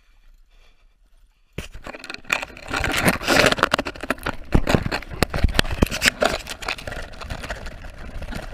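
Camera microphone being handled and rubbed against a fabric bag as it is pushed inside: loud close scraping and rustling with many sharp knocks, starting suddenly about a second and a half in.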